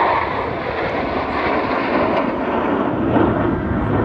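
Jet engines of a formation of eight KAI T-50B Golden Eagle jets giving a steady, loud roar as they fly past.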